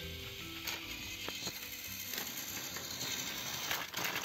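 Small battery-powered toy train motors and plastic gears grinding, with scattered clicks, as two motorized toy locomotives push against each other on plastic track.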